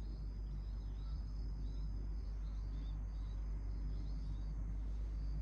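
Insects chirping: many small repeated chirps and a thin steady high tone, over a steady low rumble.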